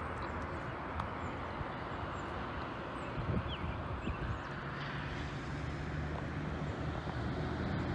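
Outdoor ambience beside a rural road: a steady low rumble of distant traffic, with a vehicle's engine hum coming in about five seconds in and growing slightly louder, and a few faint bird chirps.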